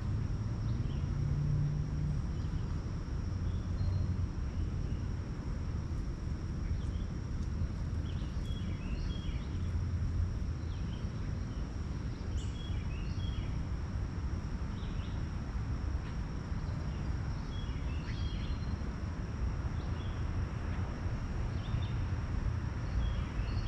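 Woodland ambience: a steady low rumble, a continuous high-pitched insect drone, and short bird chirps that come and go in small clusters from about eight seconds in.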